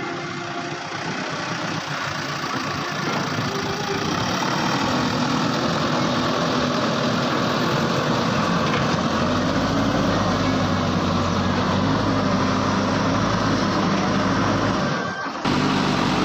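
Heavy diesel engine running steadily, with a brief break about fifteen seconds in.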